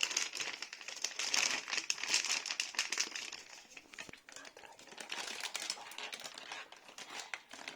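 Crinkly rustling and scraping of kinetic sand being gathered and handled with plastic tools, busier for the first three seconds and softer after that.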